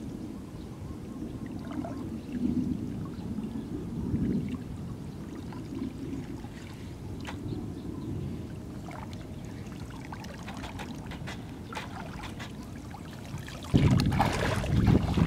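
Water pouring and trickling off a nylon cast net as it is hauled in and gathered by hand from shallow floodwater, with small splashes. Near the end a sudden louder rush of sloshing from wading steps through the water, with wind buffeting the microphone.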